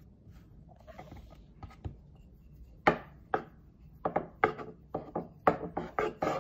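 Wooden rolling pin rolling a ball of dough flat into a wrapper on a wooden cutting board. After a few faint handling sounds, quick knocks and rolling strokes of pin against board start about three seconds in, about three a second.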